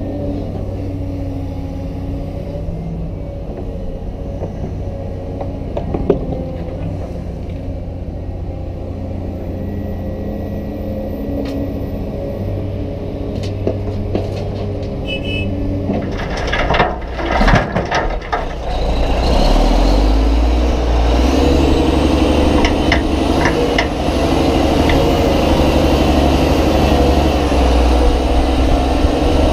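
Cat 320DL hydraulic excavator's diesel engine running steadily as it works, loading a dump truck; about two-thirds of the way in comes a burst of clattering as dirt and rock drop into the truck's steel bed. After that a heavier diesel engine runs louder and closer for the rest.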